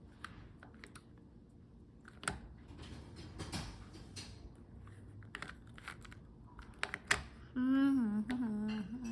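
Plastic Rubik's cube being turned by hand: irregular quick clicks and clacks as its layers are twisted. A voice sounds briefly near the end.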